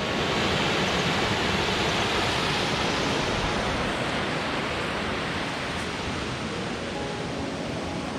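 Water rushing over a small cascade on a mountain stream: a steady rush that slowly grows fainter.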